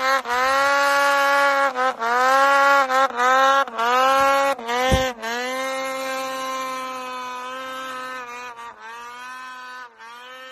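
Snowmobile engine at high revs, the throttle chopped and reopened again and again so the pitch keeps dipping and climbing back. A thump comes about five seconds in. After it, a snowmobile engine holds a steadier high pitch and fades as the sled moves away.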